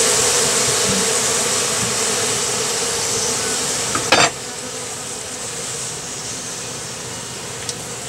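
A large honey bee colony buzzing steadily, the bees disturbed as their comb is cut out of the cavity. The buzz is louder in the first half and drops after a short knock about four seconds in.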